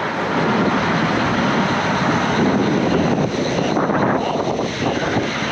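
Peterbilt heavy wrecker's diesel engine running steadily during a recovery lift.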